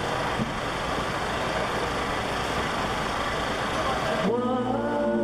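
Street crowd hubbub with chatter, then music starts abruptly about four seconds in, with sustained pitched notes as the dance performance's song begins.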